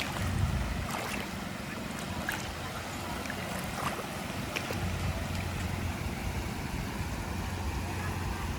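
Steady outdoor rush of wind and sea water with a low hum underneath that grows stronger about five seconds in, and a few faint clicks.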